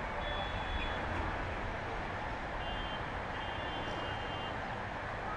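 Steady rushing of whitewater rapids. Three thin, high, steady tones sound over it: one lasting under a second near the start and two more a little past the middle.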